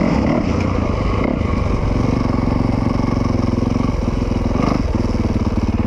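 Dirt bike engine running under way, heard close up from on board, the revs dropping briefly about four seconds in and then holding steady again.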